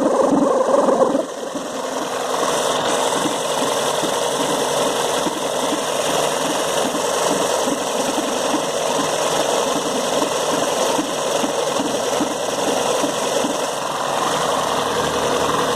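Volkswagen Gol 16-valve engine running, with a steady mechanical noise that has a fast, even rhythm: the sign of a noisy timing belt bearing.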